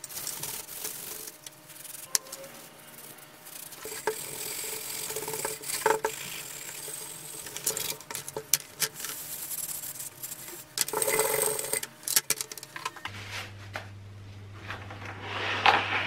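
Yellow sponge rubbing and scrubbing a paste-coated copper sprayer tank, with sharp clicks and clinks of loose metal nuts and fittings in a plastic tray. About two-thirds of the way through a steady low hum comes in.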